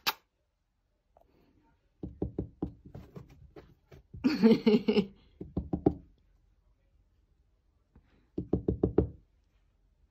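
A hand tapping with quick runs of knocks on the side of fabric-covered pet stairs, three runs in all, with a louder, harsher burst of noise about four seconds in.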